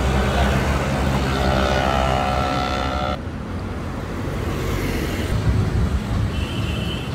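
Street traffic noise: a steady low rumble of passing vehicles, with a short high-pitched tone near the end.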